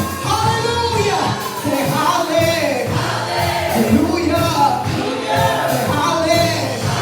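Gospel worship music: voices singing over instrumental accompaniment with a steady bass.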